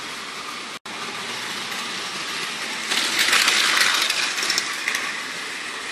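Battery-powered Plarail toy train running fast on blue plastic track, its motor, gears and wheels making a steady whirr. It grows louder about three seconds in as it passes close, then eases off. The sound is briefly cut off just before a second in.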